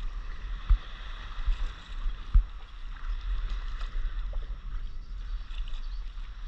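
Small waves lapping and sloshing against a stand-up paddleboard, over a steady low wind rumble on the microphone. Two dull thumps sound, the louder one about two and a half seconds in.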